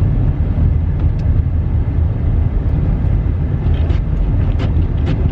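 Steady low rumble of a car in motion, heard from inside the cabin, with a few light clicks.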